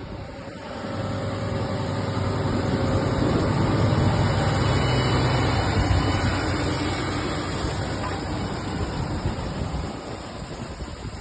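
Fendt tractor's diesel engine running as it pulls a Claydon Hybrid T6 seed drill past, swelling over the first few seconds and fading toward the end.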